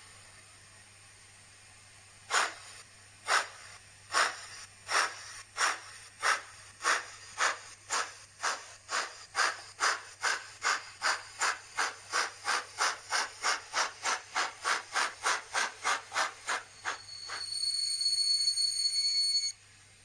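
N-scale model steam locomotive's sound decoder playing steam chuffs through its small speaker as the engine pulls away, the beats starting at about one a second and speeding up to about three a second. After the chuffing stops comes about two seconds of steady, high-pitched steam sound.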